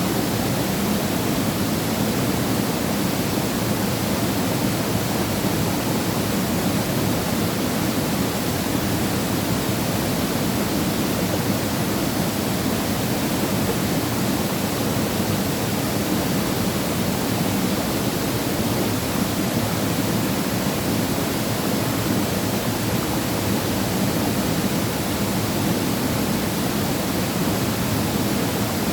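Waterfall pouring steadily into a pool, a constant even rush of falling water with no breaks.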